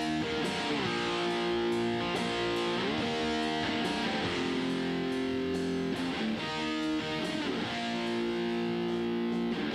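Electric guitar part played back from a recording, run through a software compressor set to a 5:1 ratio with a hard knee. It plays sustained chords that change every second or two, with short slides between them.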